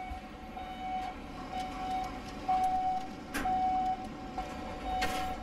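Container crane's warning beeper sounding repeatedly at one steady pitch in short, unevenly spaced beeps, over a low machinery rumble, with a couple of clanks partway through.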